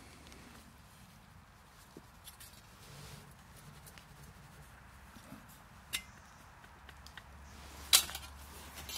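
Stainless steel parts of a wood gasifier stove being handled as it is emptied: quiet scraping with a few light clicks, then one sharp metallic clank about eight seconds in.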